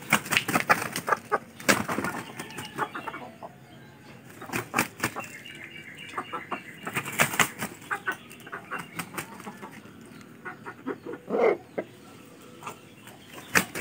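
Roosters in a yard: spells of wing flapping and sharp scuffling sounds, with clucking and one short call about eleven seconds in.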